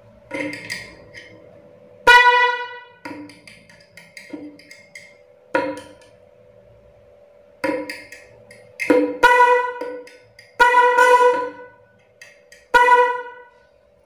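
Bosch Evolution snail-type fanfare horn, bench-tested on clip leads, honking in about ten short blasts of uneven length, the longest about a second. Not yet fitted to a vehicle, it is not that loud, short of the full loudness it may reach on a vehicle.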